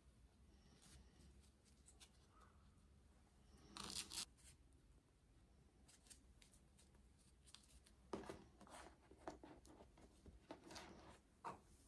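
Faint rustling and small handling sounds as hands arrange feathers against a top hat: one short rustle about four seconds in, then a run of soft ticks and rustles near the end.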